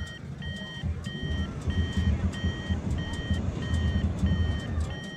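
A high electronic beep repeating evenly about three times a second, from an instrument in a hot air balloon basket, over a low rumble that grows louder in the middle.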